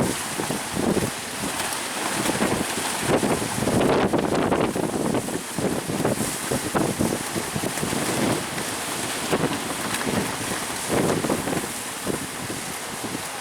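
Strong wind buffeting the microphone in irregular gusts, over the noise of high sea waves and surf.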